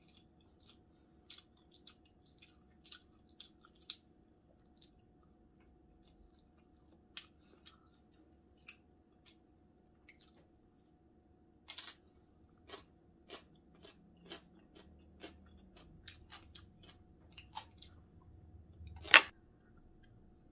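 Close-up eating sounds: chewing meat dumplings and crunchy pickled radish, with scattered soft wet mouth clicks. A single sharp knock stands out near the end.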